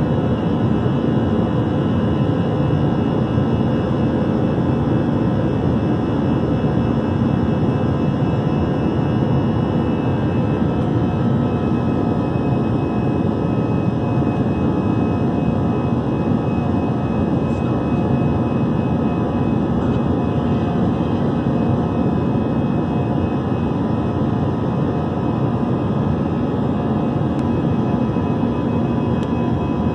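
Steady engine and airflow roar of an Airbus A321-211 in flight, with a few steady tones humming under an even rushing noise. The engines are CFM56 turbofans.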